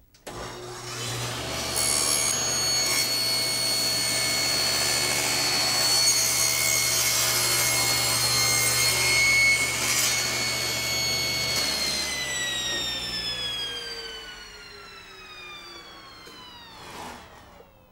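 Table saw starting up and cutting through a wide board carried on a crosscut sled, a steady whine with the rasp of the blade in the wood. About twelve seconds in the saw is switched off and the blade coasts down with a falling whine.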